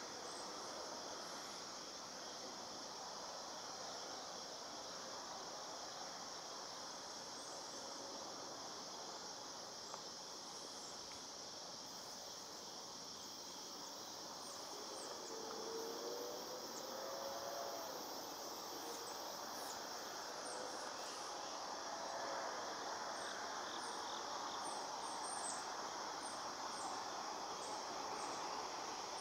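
Steady chorus of crickets and other insects, over the low rumble of freight cars rolling by on the track. A faint wavering tone rises and falls about halfway through.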